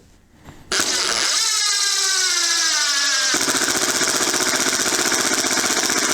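Ryobi HP brushless impact driver on its lowest speed setting driving a screw into wood. The motor starts about a second in and its whine falls in pitch as the screw bites. About three seconds in, the hammer mechanism kicks in with a rapid, steady impacting rattle.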